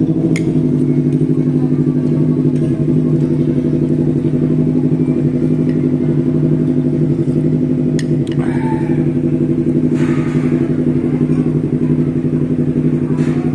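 A loud, steady engine drone with a fast flutter, starting suddenly.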